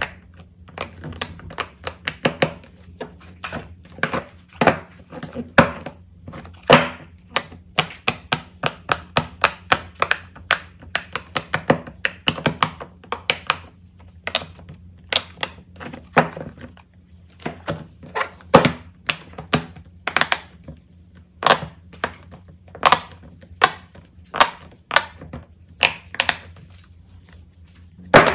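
Silicone pop-it fidget toys being pressed, their bubbles popping in quick, irregular clicks, a few a second, with the odd thunk as a toy is set down on the table.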